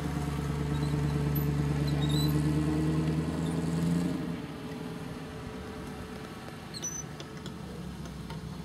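Engine of an off-road 4x4 trial vehicle working hard across rough ground, a steady strong note that drops away to a quieter low rumble about four seconds in as it eases off.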